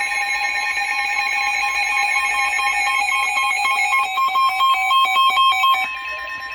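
Emergency Alert System attention tone: steady, loud electronic alert tones sounding ahead of a tornado warning. About four seconds in, a beeping pattern joins the steady tones, and they stop near six seconds.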